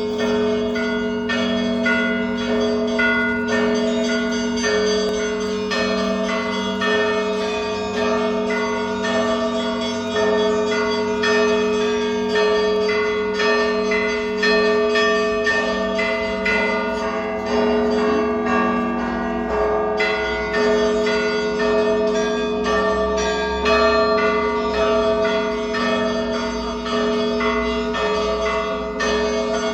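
Russian Orthodox monastery bells ringing for the morning service: many bells struck in a steady repeating pattern, higher bells chiming quickly over the sustained hum of deeper ones.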